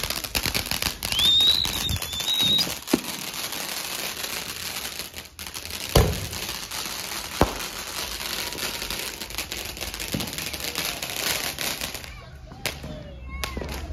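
Ground fountain fireworks hissing and crackling as they spray sparks, punctuated by four sharp firecracker bangs. A brief high whistle sounds about a second in, and the crackling dies down near the end.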